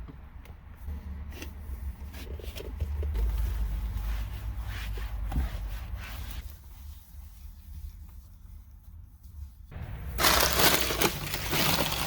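Trash being cleared out of a car: scattered crinkling, rustling and knocks over a low rumble. About ten seconds in, a loud rush of rustling noise takes over and runs for about three seconds.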